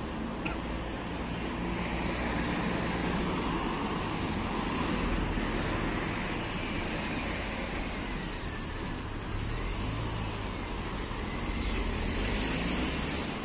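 Street traffic: cars going by on a town road, the noise swelling and fading as vehicles pass, loudest near the start and again near the end.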